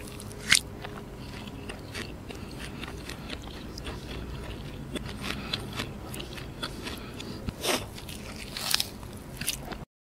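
Close-up eating sounds of roti canai topped with fried egg being bitten and chewed, with small scattered clicks and a few louder sharp crackles near the end.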